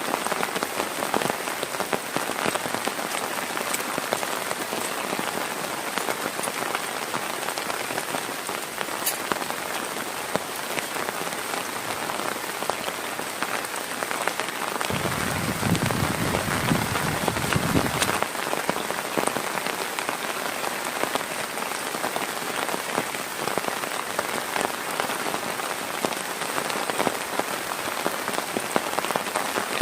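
Heavy rain falling steadily, with many separate drops striking close by. A low rumble lasts about three seconds around the middle.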